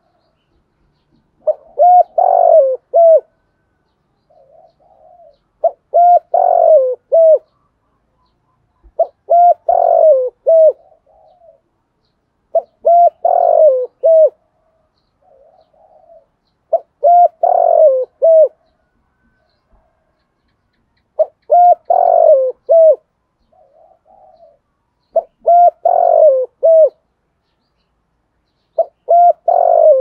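Spotted dove cooing, a loud phrase of three or four quick low coos repeated about every four seconds, with a soft short note between phrases. This is the 'thổ'-voiced urging coo (thúc gù) kept for decoy birds used to draw in wild doves.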